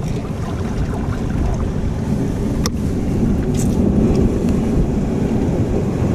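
Steady rumble of wind on the microphone over surf on a rocky shore, with a few sharp clicks about midway.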